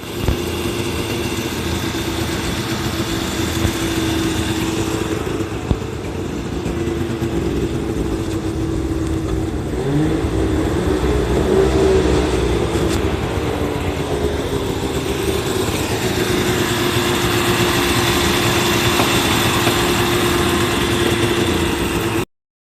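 Suzuki SJ10 Jimny's two-stroke three-cylinder engine running steadily. About halfway through it is briefly revved a little, then settles back to a steady run.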